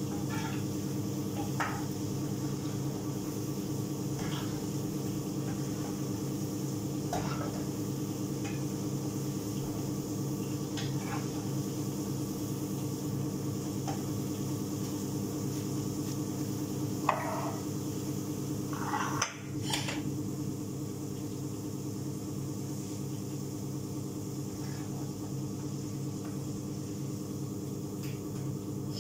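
Metal spoon clinking and scraping against a frying pan as food is stirred on a gas stove: scattered short clinks every few seconds, the loudest a little past halfway. A steady low hum runs underneath.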